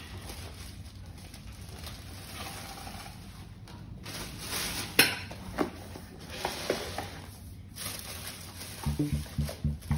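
Clear plastic packaging bag rustling and crinkling as it is pulled off a folded beach trolley, with a few sharp clicks and knocks about halfway through. Background music with a steady beat comes in near the end.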